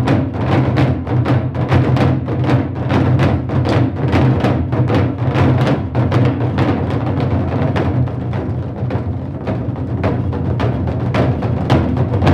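An ensemble of tall barrel drums struck with sticks in unison, playing the Korean dongsalpuri rhythm: steady strikes, about three to four a second, over a deep booming resonance. The sharp attacks soften a little past the middle and pick up again near the end.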